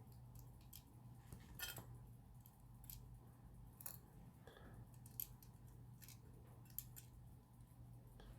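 Near silence with a faint steady hum, broken by scattered faint clicks of small metal watchmaker's tools handling pocket watch parts.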